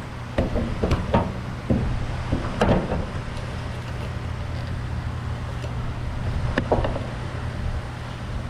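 Several light knocks and clunks of a sheet-metal body panel being handled and set into place on a car's cowl, bunched in the first second and a half, with one more near 3 s and one near 7 s. A steady low hum runs underneath.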